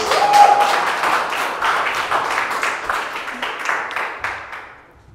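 Audience applause, dense clapping that is loudest at first and fades away over about four seconds, with a brief held voice from the crowd just after it starts.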